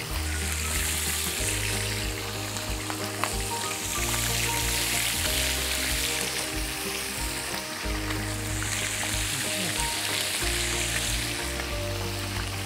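Raw chicken thighs frying in shallow hot oil in a nonstick frying pan, making a steady hissing sizzle as more pieces are laid into the oil.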